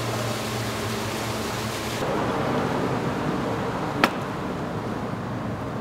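Steady background noise with a low hum, and a single sharp click about four seconds in.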